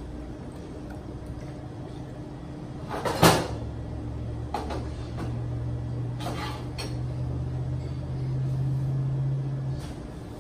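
A sharp knock about three seconds in, then a steady low mechanical hum for about six seconds. The hum grows a little louder before it stops near the end, with a few soft knocks and rustles in between.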